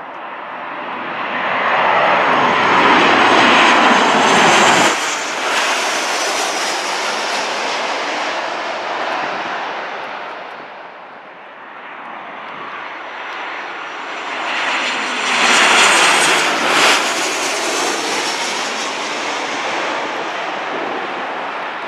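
Boeing 737 jetliners on final approach passing low overhead, their CFM56 turbofan engines building to a loud peak and fading. A second jet follows, rising to another peak around the middle of the second half with a high whine that falls in pitch as it passes, then settles to a steadier fading noise.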